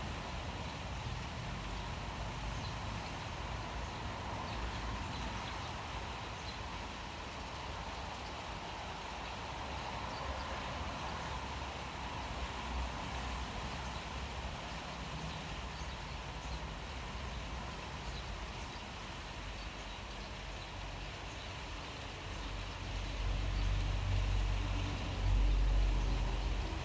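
Steady rain falling, an even hiss; a low rumble swells up for a few seconds near the end.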